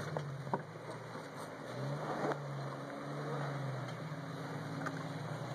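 Jeep Wrangler YJ engine running at low revs while rock crawling, its pitch rising and falling with the throttle, with a few sharp clicks and knocks of tyres on rock.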